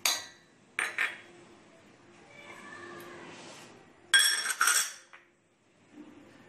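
Small glass bowls clinking and clattering against the rim of a stainless-steel mixer-grinder jar as spices are tipped in. There are sharp clinks at the start and about a second in, a soft rustle, then a louder clatter about four seconds in.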